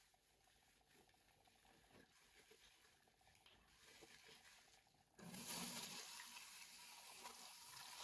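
Near silence at first. About five seconds in, a faint stream of tap water starts running into a bathroom basin while a wet microfibre cloth is rubbed and rinsed under it.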